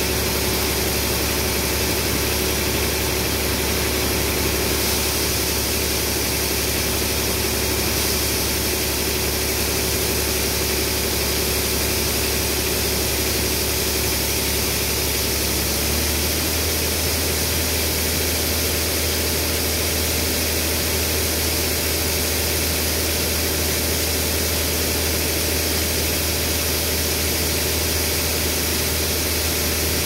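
An engine idling steadily, with a steady hiss over it; the low hum shifts slightly about halfway through.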